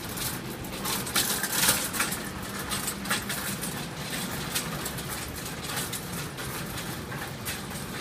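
Steady mechanical hum of air conditioner condensers and exhaust fans, with a run of sharp clicks and rustles, loudest about a second or two in.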